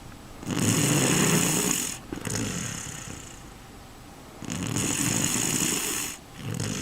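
A sleeping person snoring: two long snores about four seconds apart, each followed by a quieter breath, and a third snore starting near the end.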